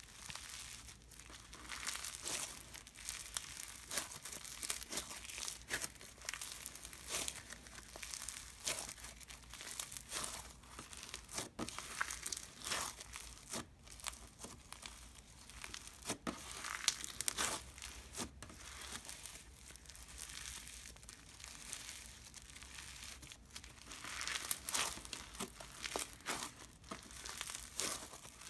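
Snow fizz slime being stretched and pressed by hand, giving a steady run of crunchy crackles and ripping sounds as it tears.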